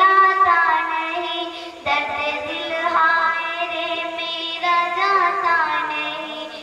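A young girl singing a naat, an Islamic devotional poem, solo into a microphone. She holds long notes that waver in pitch, with a short break about two seconds in.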